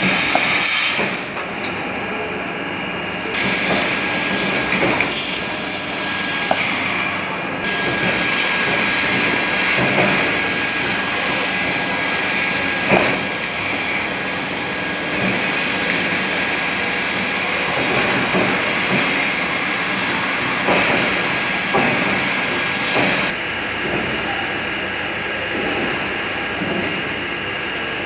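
CNC laser cutter cutting 2 mm stainless steel sheet: a loud, steady hiss from the cutting head. Its higher part drops out for a second or two several times, and it runs quieter over the last few seconds.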